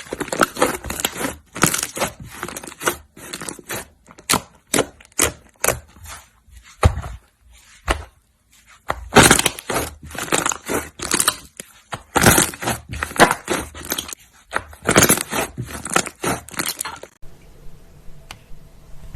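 Slime being squeezed and worked by hand, giving a rapid, irregular run of crackling pops and clicks. It turns much quieter about three seconds before the end.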